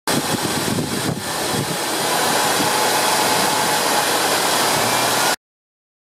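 Buick 3800 Series II V6 engine running steadily at idle, with a faint steady whine over the engine noise; the sound cuts off suddenly about five seconds in.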